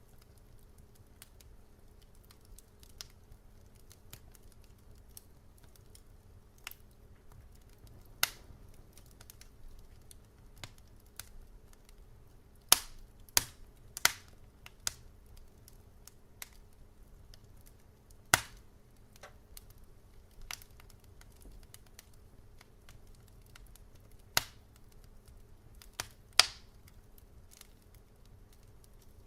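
Fire crackling in a fireplace: irregular sharp pops and snaps, a quick run of the loudest ones near the middle and two more near the end, over a faint steady low hum.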